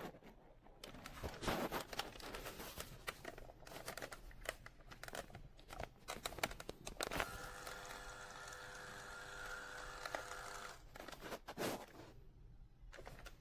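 Packaging being handled: crinkling, tearing and scattered clicks. About seven seconds in comes a steady mechanical whir with an even pitch, lasting about three and a half seconds, followed by a few more clicks.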